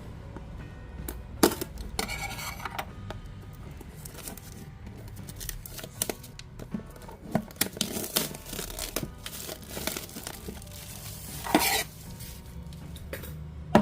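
A cardboard product box being opened by hand: tearing and crinkling of its seal and packaging, with scrapes and clicks of handling and two longer tearing sounds, about two seconds in and near the end. Quiet background music runs underneath.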